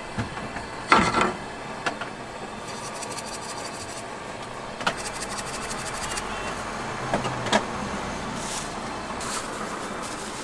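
Chopped bacon frying in oil in a pan over a gas burner, a steady sizzle and hiss, with a few sharp knocks of the pan and utensils and two short runs of fast ticks.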